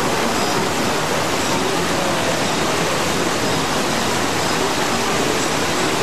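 Churning whitewater rushing down the channel of a river-rapids raft ride, a steady loud rush of water.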